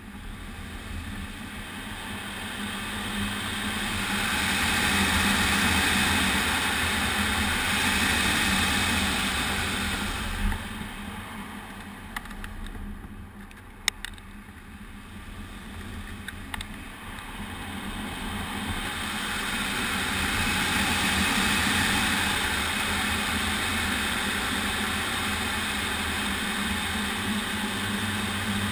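Air rushing over the canopy of an MDM-1 Fox aerobatic glider in flight, swelling as it gathers speed through the figures and fading as it slows: loudest early on and again in the second half, quietest about halfway through, where a few sharp clicks sound. No engine, only the airflow, with a steady low hum beneath it.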